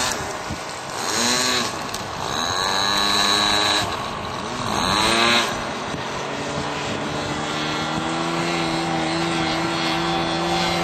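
Radio-controlled AT-6 Texan model airplane flying, its engine's pitch rising and falling several times during the first five seconds, then holding steady.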